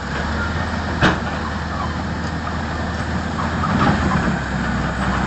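Heavy vehicle engine running steadily as the vehicle drives on, with one sharp knock about a second in.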